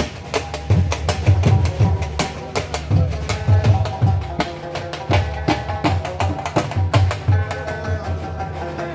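Dhol drumming in a fast, dense rhythm: deep bass thumps under sharp, high stick cracks. From about three and a half seconds in, a melody instrument joins with held notes over the drumming.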